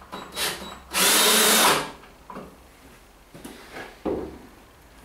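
Cordless drill with a crosshead bit driving a 100 mm wood screw into timber: a brief burst, then a loud run of almost a second. A few light knocks follow.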